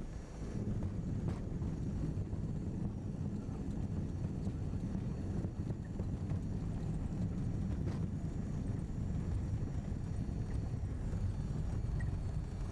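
Steady low rumble of a moving vehicle heard from inside its cabin.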